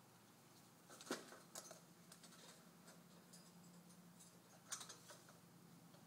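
Sparse clicks and taps from a parrot moving on an apple in its cage, against a near-silent room. Two louder clusters of clicks come about a second in and again near five seconds.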